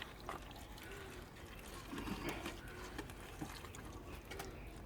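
Faint wet rustling and small clicks as soggy debris from a waterlogged safe is handled and sorted.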